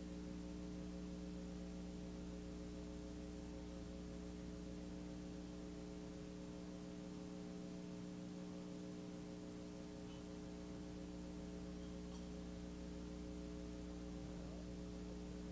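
Steady electrical hum with several overtones over faint hiss, unchanging throughout; no tool or metal sounds stand out.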